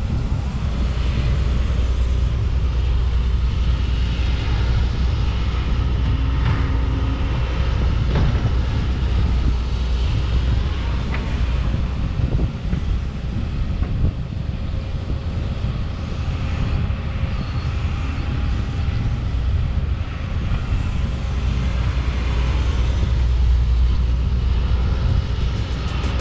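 Diesel engine of an old International tandem dump truck running as the truck drives, a steady low rumble.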